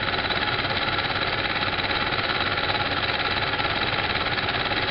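A small machine running steadily at an even speed with a fast, continuous rattle.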